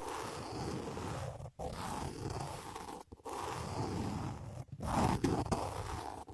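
Scratching on a binaural ASMR microphone with a nail file or wool brush, a steady rasp in stretches of about a second and a half broken by brief gaps.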